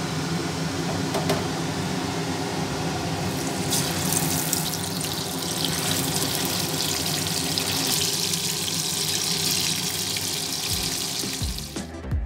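Water running from a kitchen tap, becoming louder about four seconds in, over a steady motor hum. Both cut off abruptly near the end, and music begins.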